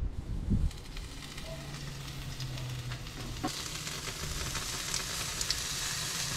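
Bacon-wrapped goat backstraps sizzling on a hot barbecue grill over coals. The sizzle grows louder about halfway through as the meat is laid on the grate, with light clicks of metal tongs.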